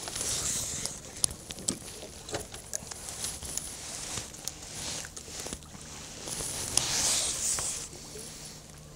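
Light splashing and lapping of river water at the side of a small boat, with scattered sharp clicks and knocks of handling on board.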